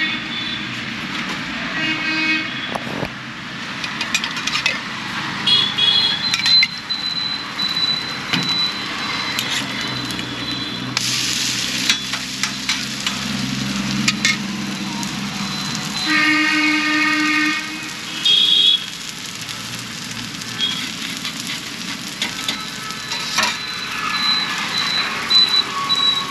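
Busy street traffic with several vehicle horn honks; one longer honk comes about sixteen seconds in.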